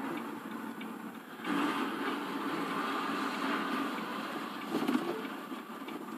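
Steady engine and road noise heard from inside a moving vehicle's cab, growing louder about a second and a half in, with a brief louder swell near the five-second mark.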